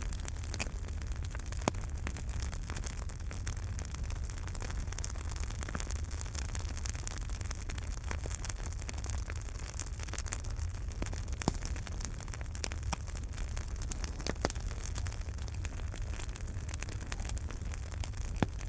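Wood fire burning in a fireplace: a steady low rumble and hiss with frequent small crackles and a few sharper pops scattered through.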